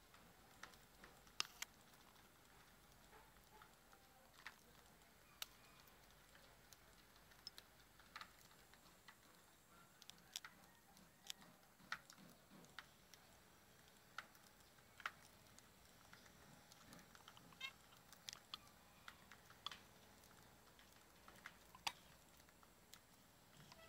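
Budgies pecking and cracking seeds: faint, irregular sharp clicks and ticks.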